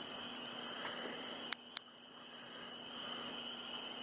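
Steady night chorus of frogs and insects from a marsh, a continuous high-pitched trill, with two sharp clicks about a second and a half in.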